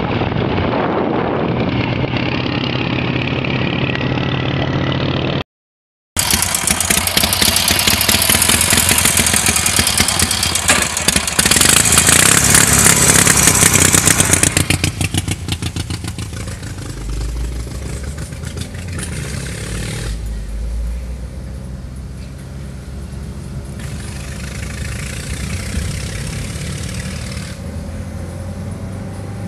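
Vehicle engines and wind noise on the road. First the 1926 BMW R42's engine running under wind on the microphone. After a brief dropout at a cut about five seconds in, a louder stretch of engine and wind follows. About halfway through it eases to quieter, steady road noise.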